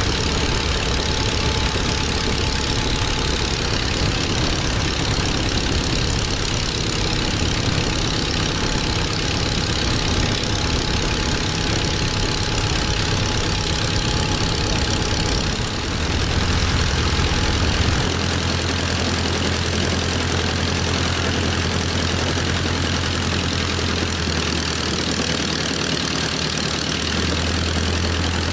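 Lycoming IO-320 four-cylinder air-cooled aircraft engine with its propeller, running steadily at low idle on its first run after a rebuild. Its low drone shifts in pitch once about two-thirds of the way through and again near the end.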